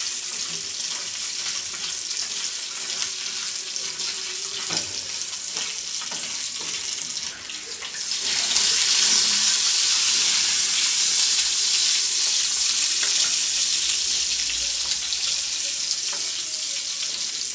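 Sliced meat sizzling in hot oil in a frying pan, stirred with a spatula. About eight seconds in, chopped onion goes into the pan and the sizzle turns louder and stays up.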